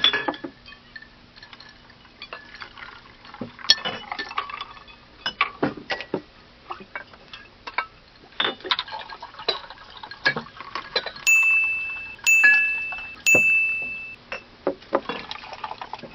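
Canteen kitchen sounds: dishes and cutlery clinking and clattering on and off. Later three chime-like dings sound about a second apart, each ringing briefly and fading.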